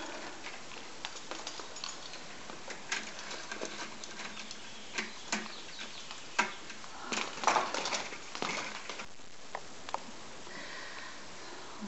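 Someone moving about a room: scattered light clicks and rustles, with a louder clatter of several knocks about seven to eight and a half seconds in.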